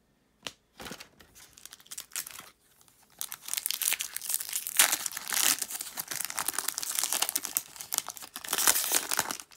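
A foil Topps Chrome trading-card pack being torn open and crinkled by hand. A few light handling clicks come first, then dense crinkling of the wrapper from about three seconds in.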